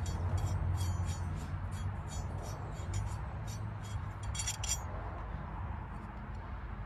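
Small metal parts of a universal battery clamp, the wing nuts and bracket, clinking as they are handled: a run of quick light clinks in the first second and a half, quieter after, and another cluster about four and a half seconds in.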